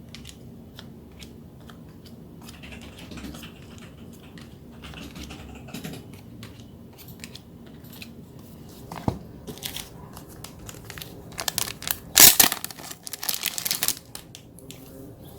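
Packaging being handled and torn open: small crinkles and clicks, then a loud stretch of tearing and crinkling about two-thirds of the way in.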